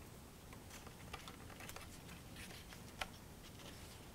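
Faint handling of glued cardstock pieces being pressed together: light, scattered ticks and rustles of paper, with one sharper click about three seconds in.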